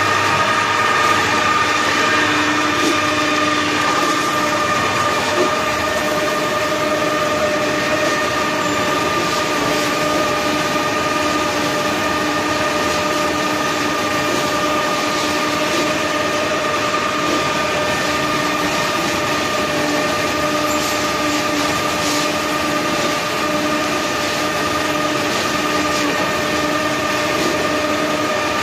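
Electric-driven 4 m³ TMR feed mixer running steadily while mixing feed: a continuous motor-and-gearbox hum with a steady whine over the rumble of the mixing.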